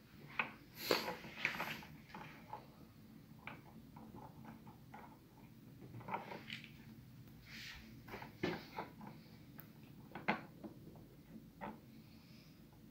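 Irregular clicks, light knocks and brief rustles: packaging and statue pieces being handled during unboxing.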